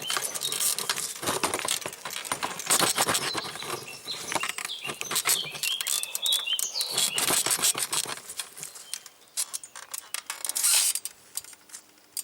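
Sprung 1970s bicycle saddle squeaking and creaking under a rider's rocking weight, a dense run of creaks with short high squeals. The squeaking thins out after about eight seconds, with one more burst shortly before the end.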